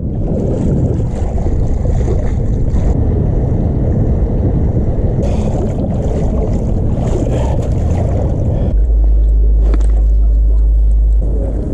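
Wind buffeting the microphone of an action camera held low over choppy floodwater, with water lapping and splashing around it. About nine seconds in the wind noise turns into a heavier, steady low buffet for a couple of seconds, then eases.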